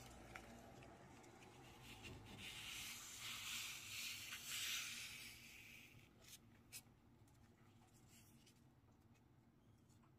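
Faint rustling of a strip of hanji (Korean mulberry paper) being handled, swelling about two seconds in and lasting a few seconds, followed by a couple of light taps.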